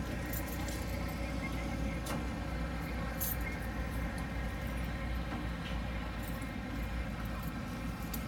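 A car engine idling steadily with a low rumble, and a few light clicks.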